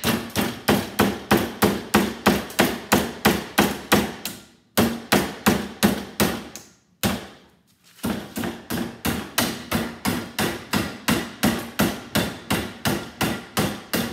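Hammer blows on a small electric motor clamped in a bench vise, about three a second, each with a short metallic ring, in three runs with brief breaks about 5 and 7 seconds in. The motor's copper-wound core is stubborn and is being driven out by force.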